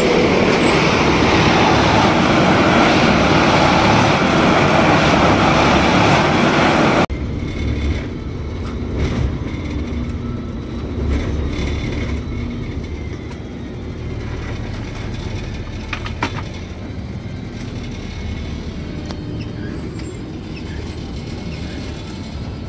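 Plasser & Theurer railway tamping machine running loud, then dropping suddenly to a quieter steady engine noise about seven seconds in, with an occasional knock.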